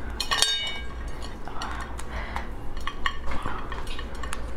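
Spiny lobster shell being broken apart by hand over a ceramic plate: a run of sharp cracks, snaps and crackling, with a short ringing clink about half a second in.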